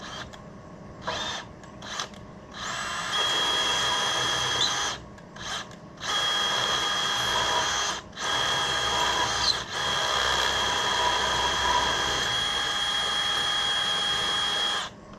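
Power drill boring into a broken steel bolt to drill it out after an easy-out failed. A few short trigger bursts come first, then long steady runs with a high whine, broken by brief pauses, until it stops near the end.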